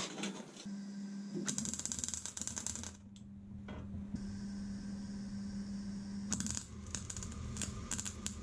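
Electric welder tack welding a steel bottom bracket shell to its mounting plates: a steady low hum, with three short bursts of crackling arc, about a second and a half in, and twice near the end.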